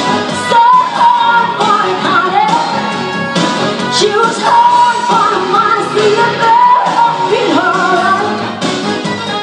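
A woman singing into a handheld microphone over backing music, holding some notes and gliding between others.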